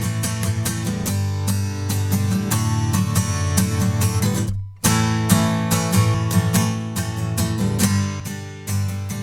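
Instrumental music led by strummed acoustic guitar over a strong bass line and a steady beat. It cuts out abruptly for a fraction of a second just past halfway, then resumes.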